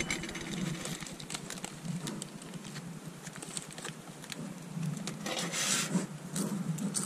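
Small plastic and metal camp-kitchen items being handled and lifted out of a stainless steel camp cup: scattered light clicks and rattles, with a short rustle a little past five seconds in.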